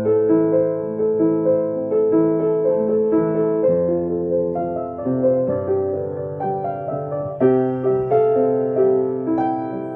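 Background music: a soft piano piece, gentle chords and melody notes struck and left to ring, with a new note every half second or so.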